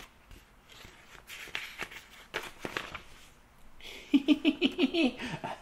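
Pages of a picture book rustling as they are turned, then a man's quick staccato 'hee hee hee' giggle. The giggle is a string of about eight short notes that drops in pitch at the end.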